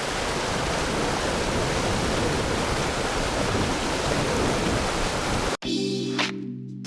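Monsoon waterfall roaring steadily for about five and a half seconds, cut off suddenly, followed by music with steady tones and sharp beats.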